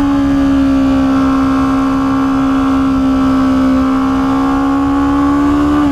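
Kawasaki Ninja 650's parallel-twin engine running at steady revs under light throttle while the bike cruises, its pitch held nearly constant.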